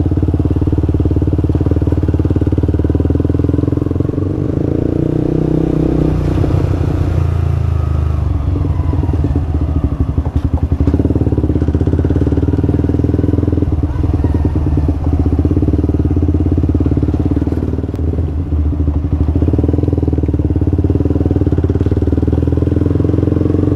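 Yamaha R15 v2's single-cylinder four-stroke engine running as the motorcycle is ridden, its note shifting a few times with the throttle.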